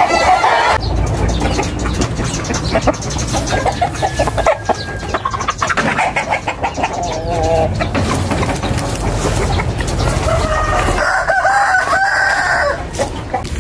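Backyard chickens clucking, with a rooster crowing twice, around the middle and again near the end, over a low rumble in the first half.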